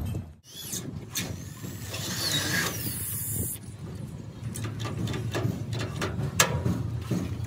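Workshop clatter: scattered knocks and clanks of metal and tools. From about two seconds in, a loud hiss lasts a second and a half, then cuts off.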